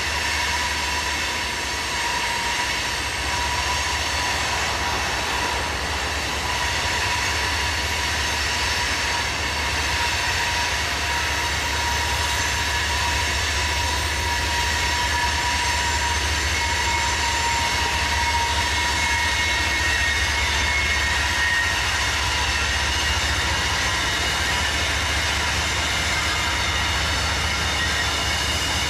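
Loaded coal hopper cars rolling slowly past, their wheel flanges squealing against the rail in loud, steady high tones over a low rolling rumble.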